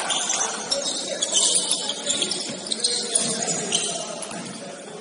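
Metallic jingling, shaken in patches, over the hubbub of a gym hall.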